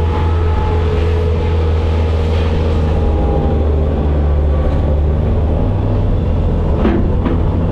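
Bobcat skid steer's diesel engine running steadily under operation, with two short knocks near the end.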